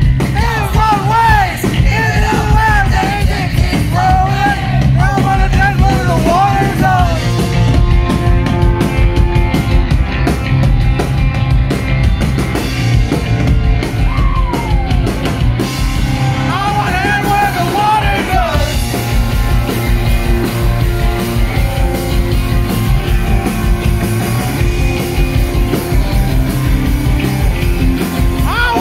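Live rock band playing loudly: electric guitar, bass and drums, with shouted singing for the first seven seconds or so and again briefly past the middle, and a stretch of guitar and drums alone in between.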